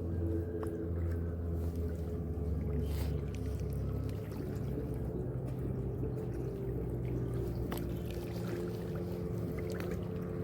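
A steady low engine-like hum, with a few faint clicks.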